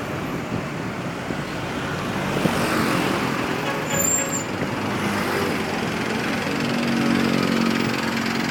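Road traffic, with large vehicles driving past.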